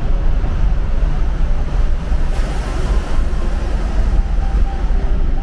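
Steady low road rumble of a car driving through a road tunnel, tyre and engine noise heard from inside the cabin, with a rise in hiss from about two and a half seconds in.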